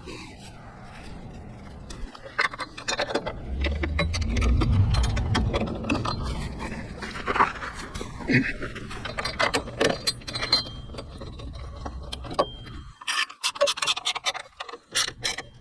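Metal hardware clinking and scraping as bolts and running-board brackets are handled and fitted, with a burst of sharp clicks near the end. A low rumble about four to six seconds in is the loudest part.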